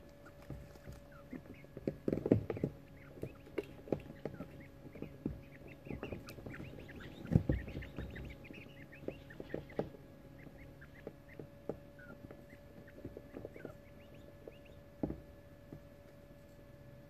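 Young coturnix quail chicks chittering with many short high chirps, thickest around the middle. Knocks and rustles come as they shuffle about in wood shavings, the loudest about two and seven seconds in. A faint steady hum runs underneath.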